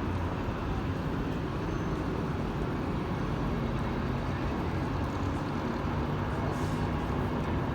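Supertram tram 111 running in to a stop: a steady low rumble with a low electric hum.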